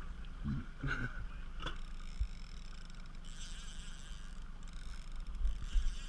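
A trolling boat's motor running low under the rumble of wind on the microphone. About halfway through, a high buzz sets in that fits a fishing reel's drag giving line to a heavy hooked fish; it drops out briefly and then runs on.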